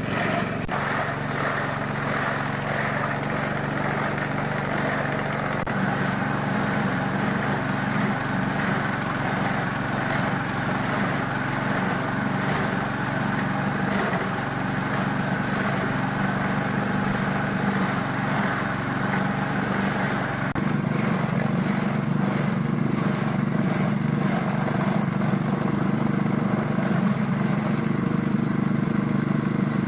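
Small petrol engine running steadily, driving a forage chopper as banana stalks are fed in and shredded. It gets a little louder about two-thirds of the way through.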